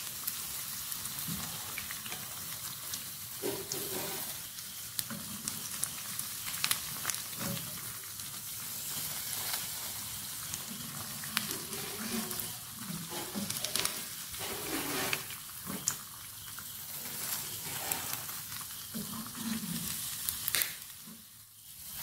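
Rice cutlets shallow-frying in sunflower oil over a low flame: a steady sizzle with many small crackling pops, dying down briefly near the end.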